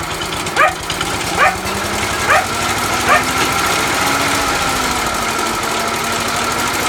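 A 1930s Sturmey-Archer engine on a Ransomes lawnmower running steadily. Over it, a dog yelps four times in the first three seconds or so, short rising calls a little under a second apart.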